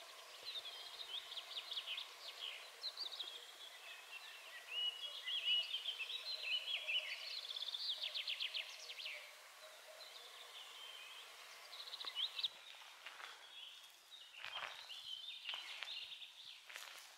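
Dawn chorus of several songbirds singing: quick chirps and warbling phrases, with a rapid trill about eight seconds in. Near the end, a few footsteps through low undergrowth.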